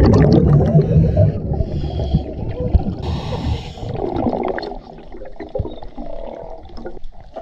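Scuba regulator breathing underwater: a loud rush of exhaled bubbles for the first second or so, then short hissing inhales through the regulator, followed by quieter bubbling with small clicks.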